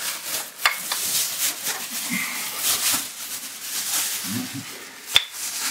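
Rustling and scraping of a person moving through a low, cramped mine passage, with two sharp clicks and a couple of short low grunts.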